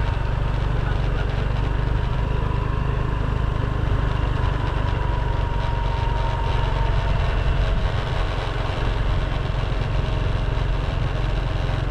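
Steady low rumble of riding along a rough road behind electric kick scooters, wind and ride noise on the moving camera, with a faint thin whine through the first half that fades out.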